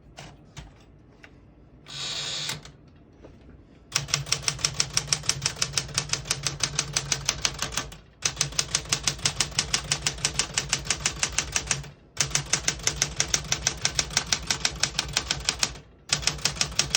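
1969 Smith-Corona Galaxie Deluxe manual portable typewriter being typed on key after key at a steady pace, about four strikes a second, in runs of about four seconds with brief pauses between them. Before the typing starts there are a few light clicks and a short rasping sound about two seconds in.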